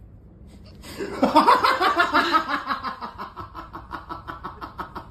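A person laughing in a fast run of even 'ha' pulses that starts about a second in, loudest at first and trailing off over the next few seconds.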